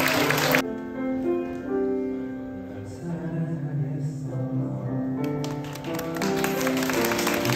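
A man singing a slow love song over backing music, holding long notes. Noisier crowd sound opens the stretch and builds again in the last couple of seconds.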